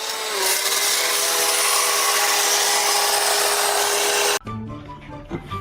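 A power tool running with a steady whine over a loud hiss, cutting off abruptly about four seconds in; a brief quieter stretch with faint notes follows.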